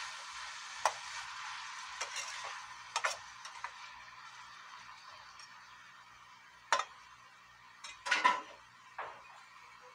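Food sizzling in a deep frying pan, the hiss slowly dying down, while a spatula stirs and knocks against the pan about eight times; the loudest knocks come near the end.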